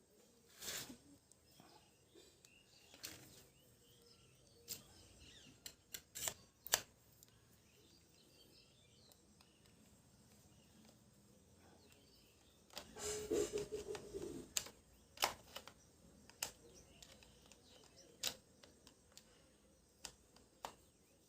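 Scattered clicks and knocks of small parts and tools being handled during a hand-held angle grinder repair, with a longer, denser clatter about two-thirds of the way through. Faint bird chirps in the background.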